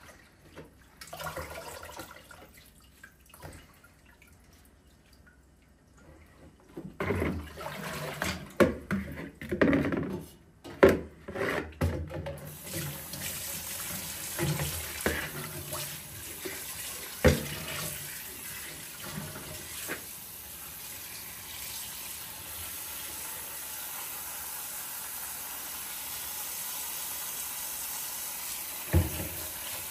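Hands swishing and splashing greens in a bowl of water in a kitchen sink. A little under halfway through the tap is turned on and runs steadily while the greens are rinsed under it, with a couple of sharp knocks against the sink or bowl.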